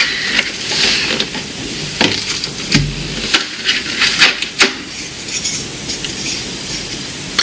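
Cardboard box and thin laser-cut plywood sheets being handled: sliding and scraping against each other with a rustle, broken by a few light knocks, the heaviest with a dull thump about three seconds in.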